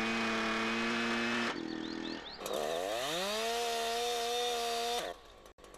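A Husqvarna two-stroke chainsaw is revved up to full throttle and held there, twice. The first run changes and falls away about one and a half seconds in. The second climbs again and stops abruptly near the end, each run ending as the chain brake is tripped.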